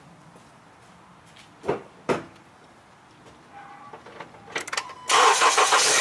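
Two short knocks, then about five seconds in a Honda CR-V's engine is cranked briefly by the starter, catches at once and runs steadily and loudly. It is starting on a freshly installed battery.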